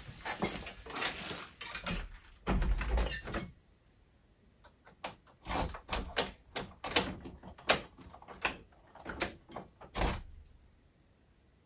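Shed door pulled shut with a heavy thud about two and a half seconds in, then a run of sharp clicks and knocks at the closed door and its lock for several seconds.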